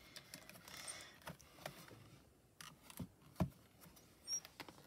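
Scattered light clicks and taps from handling a plastic stamp positioning tool and its clear stamping plate, with two sharper knocks about three seconds in.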